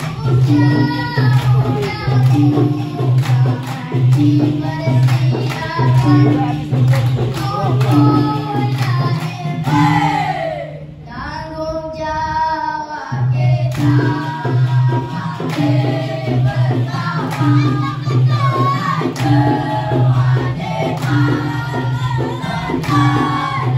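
Dikir barat: a chorus of boys singing together over a steady, repeating percussion beat. About ten seconds in the beat stops for some three seconds while the voices glide down and hold a long note, then the beat and singing resume.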